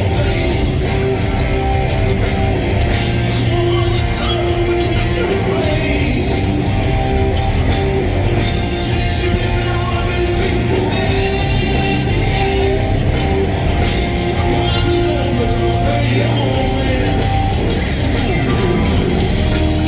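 Loud live hard rock band playing: electric guitar with long held notes over bass and drums, steady throughout.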